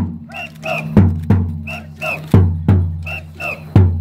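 A carried drum struck in a steady rhythm: pairs of booming beats, each with a low ring, about every second and a half. Between the beats a group of voices calls out twice in a chant that keeps time with the drum.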